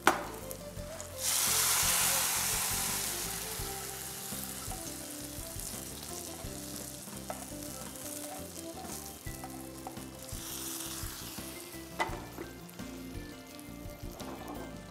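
Hot tempering oil with mustard seeds, dried red chillies, fried onion and curry leaves being mixed into a chicken curry: a loud sizzle starts suddenly about a second in and fades over a few seconds. Frying and stirring in the pan continue, with a shorter burst of sizzle near ten seconds.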